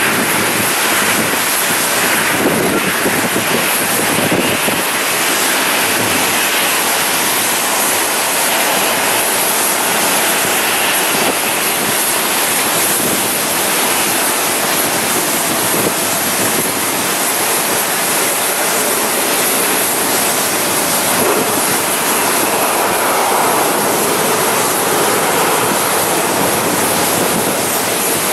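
Steady roar of jet airliner engines at taxi power, mixed with wind noise on the microphone.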